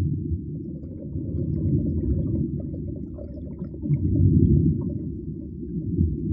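Low, muffled underwater rumble that swells and fades, loudest a little past the middle, with faint scattered crackles above it.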